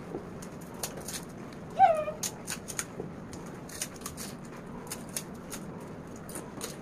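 Crisp pani puri shells cracking and crunching as several people break and eat them quickly, heard as many short sharp clicks. About two seconds in comes one brief high cry that falls in pitch, the loudest sound.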